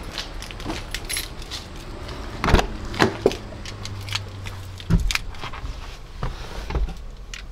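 A string of irregular sharp clicks and light knocks over a steady low rumble.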